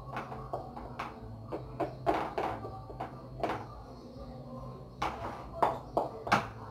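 Metal spoon scraping and knocking against a stainless steel bowl while cooked rice is pressed and packed down, in irregular strokes, with a steady low hum underneath.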